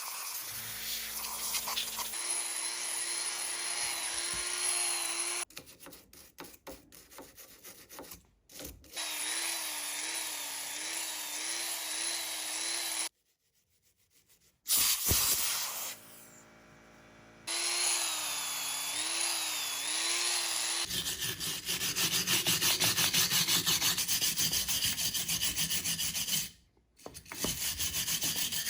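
Hand-held power tool scrubbing rust and grime off a cast-iron Charles Parker vise. The motor's pitch wavers as it bears on the metal, with several abrupt cuts, then a louder, fast rhythmic scrubbing near the end.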